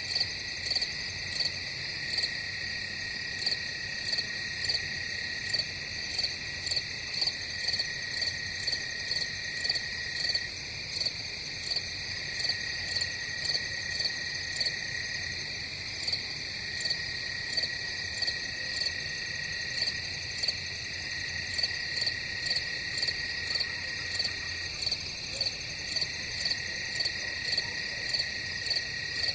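Night chorus of crickets chirping in a steady rhythm of about two pulses a second, over a continuous high insect trill.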